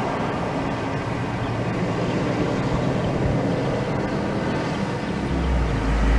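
Steady mechanical drone of engine noise. About five seconds in, a deep low rumble swells up.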